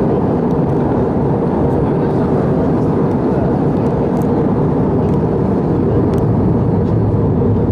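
Steady cabin noise inside an Airbus A319 in flight: a constant low rush of engine and airflow noise that neither rises nor falls.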